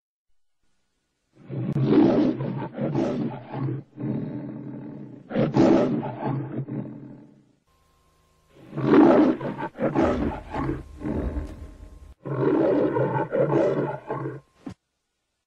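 The MGM lion roar from the studio's logo, pitched up high: four long roars with short gaps between them, starting about a second and a half in.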